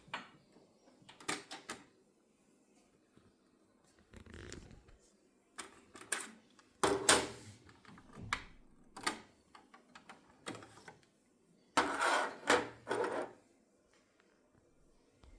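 Kenwood KX-660HX cassette deck being operated after playback stops: a series of irregular mechanical clicks and clunks from its buttons and tape transport, with a longer rattling stretch near the end.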